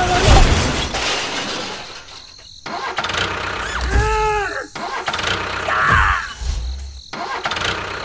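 Toy-vehicle sound effects: a vehicle engine running, a heavy thud near the start and another around six seconds as the loaded trailer crashes into the pit, and a short cry that rises and falls in pitch about four seconds in.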